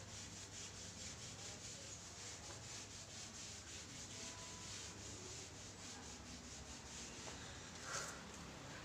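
Faint scratching of a marker pen rubbing across a small whiteboard in a run of short, regular strokes as someone writes.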